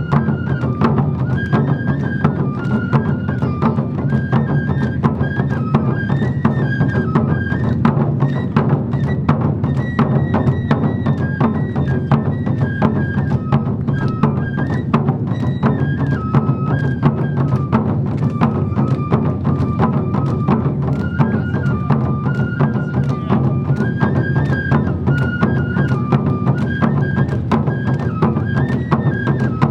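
Awa Odori festival band playing: a bamboo flute carries a stepping melody over a steady, driving beat of drums and other percussion.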